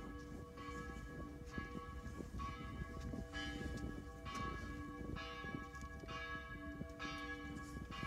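Church bells ringing, several bells sounding in turn at about one stroke a second, each note ringing on into the next.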